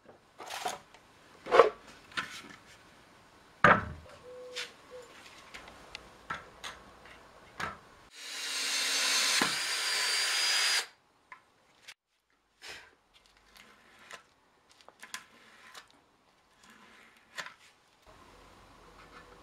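Cordless drill boring a hole through the top stave of a small cherry-wood barrel: one loud steady run of about two and a half seconds, a little past the middle, that stops suddenly. Before it come scattered sharp wooden knocks and clicks, and after it only faint small clicks.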